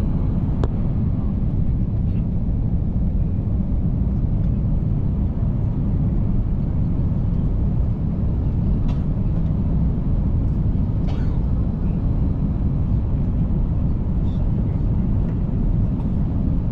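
Steady low roar inside a jet airliner's cabin on final approach, the engine and airflow noise heard from a window seat. A few faint clicks sit over it.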